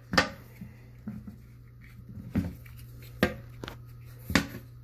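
Four sharp clicks and knocks, a second or so apart, from handling the Switchblade PRO pipe cutter as its replacement blade is seated and locked in place, over a steady low hum.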